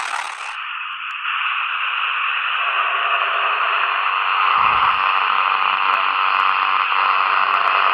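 Loud, steady static hiss like a radio between stations. About half a second in, its highest part cuts off and it turns thinner and narrower.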